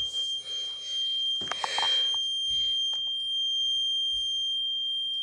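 Fire alarm sounding one continuous, high-pitched steady tone, with a brief rustle of handling about one and a half seconds in.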